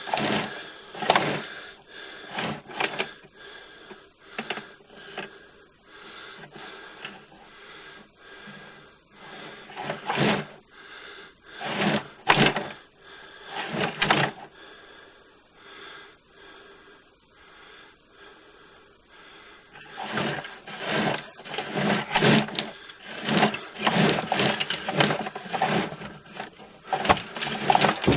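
Irregular rattling and knocking of a sewer inspection camera's push cable being fed down the line, with a busier run of clatter near the end.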